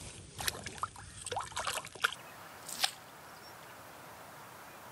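Water splashing and dripping as a trout is lowered into the water by hand and let go: a quick run of small splashes over about two seconds. Then quieter open-air background with a single short click.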